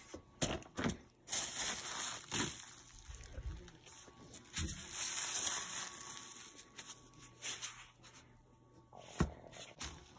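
Bubble wrap being handled, rustling and crinkling in two longer stretches, with several short knocks in between and a sharp knock near the end.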